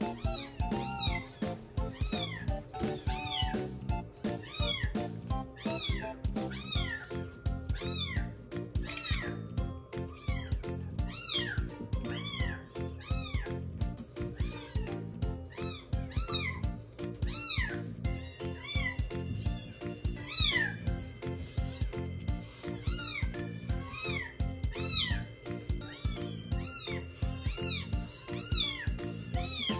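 Young calico kitten giving short, high mews that rise and fall in pitch, about once a second, while suckling from a feeding bottle. Background music with some long held notes plays underneath.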